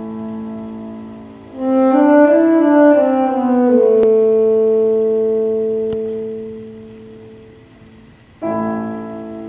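Alto saxophone and piano playing slow music. About a second and a half in, a phrase of notes rises and falls, then settles into a long held note that fades away. A new chord comes in about a second before the end.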